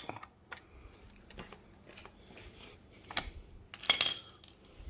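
Scattered clinks and knocks of metal tools and small parts being handled. The loudest comes about four seconds in, with a short metallic ring.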